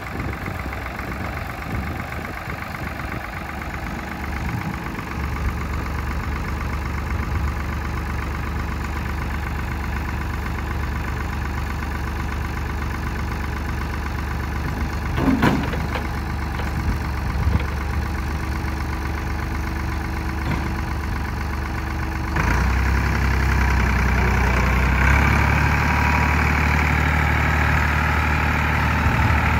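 A 1995 Ford New Holland 4630 tractor's three-cylinder diesel engine idles steadily while the front loader is worked. There is a single sharp clank about halfway through. About three-quarters of the way in the engine speeds up and gets louder.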